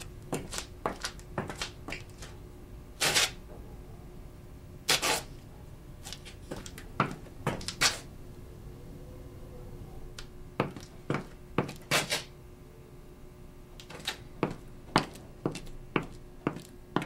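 Sound-effect footsteps on a hard floor, with a few louder clatters of a door being opened and shut, over a faint steady hum.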